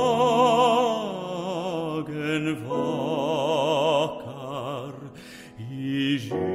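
Slow classical art song: a singer holds long notes with wide vibrato over sustained low accompaniment chords.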